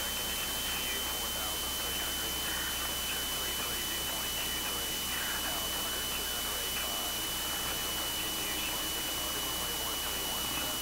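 Steady hiss and hum of a light aircraft's engine and cabin noise fed through the cockpit intercom in flight, with a thin steady high whine over it. It sounds like a jet engine, which the pilot puts down to one intercom recording volume set too high.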